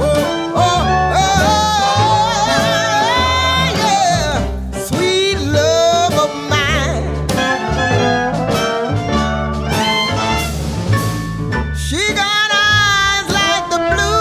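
Jazz-style music track: a singer and brass over a steady walking bass beat.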